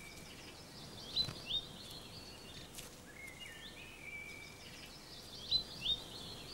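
A songbird singing the same short phrase twice, each time a few stepped notes and a held note, then two quick upward-sweeping whistles that are the loudest part. Faint steady hiss beneath.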